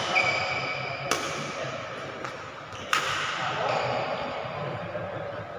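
Badminton rackets hitting a shuttlecock during a rally: two sharp hits about two seconds apart, over a murmur of background noise in the hall.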